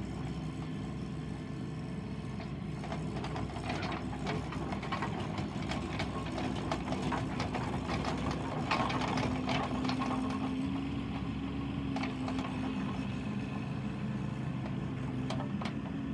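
Bobcat 324 mini excavator's diesel engine running steadily while the machine tracks and moves its arm, with the engine note rising a little under hydraulic load about two-thirds of the way through. Many sharp clanks and gravel crunches from the tracks and bucket come thickest in the middle stretch.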